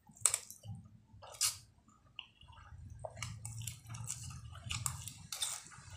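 A person eating a mouthful of wet instant noodles: chewing and slurping with squishy mouth sounds. Two sharp slurps come in the first two seconds, then a quick run of wet smacking from about halfway through.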